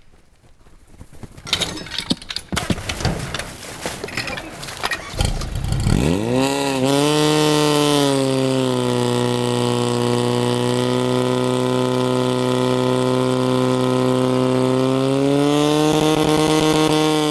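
Knocks and clatter as suction hoses are coupled to a portable fire pump. About five seconds in, the pump's engine starts and revs up, rising in pitch, then runs loud and steady at full throttle to drive water through the attack lines. The pitch lifts slightly near the end.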